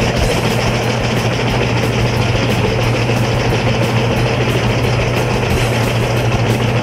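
Albach Diamant 2000 wood chipper running steadily: a constant low engine drone under a dense, even wash of machine noise, with background music mixed in.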